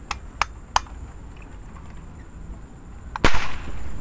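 A few light clicks, then about three seconds in a single sharp air gun shot fired at a fish in the water.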